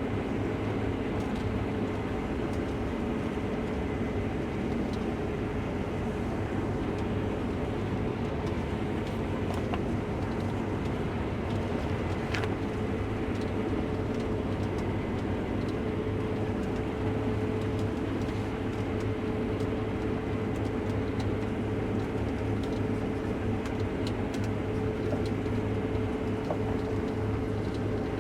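Case IH Axial-Flow combine heard from inside the cab while harvesting wheat: a steady drone of engine and threshing machinery with an even hum.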